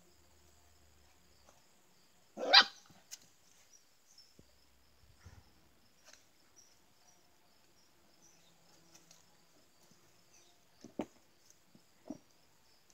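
A dog barks once, sharply and loudly, about two and a half seconds in, then gives two shorter, fainter barks near the end.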